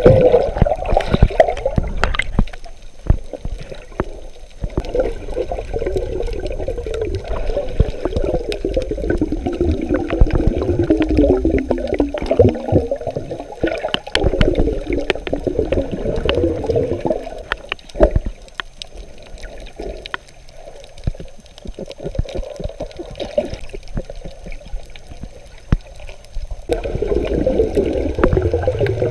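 Underwater water noise picked up by a submerged camera: muffled gurgling and rushing water with many sharp clicks. It drops away for a few seconds about two seconds in and again from about 18 to 26 seconds in.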